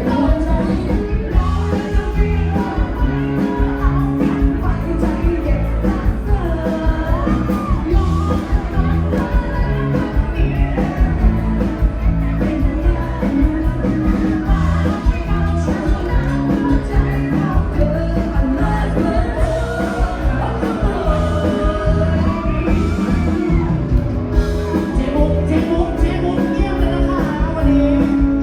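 Live band with a singer performing a rock-style song, amplified through the bar's sound system, with a steady driving beat.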